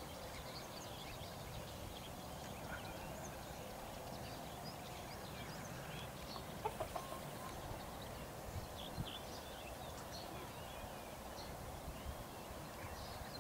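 Outdoor morning birdsong: small birds chirping on and off, with domestic hens clucking.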